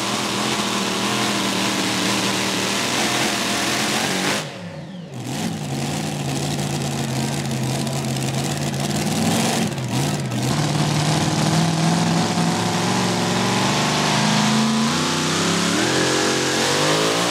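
Modified pulling tractor's supercharged engine running hard under load. About four seconds in, its revs drop sharply for about a second, then pick up again, and near the end the revs rise.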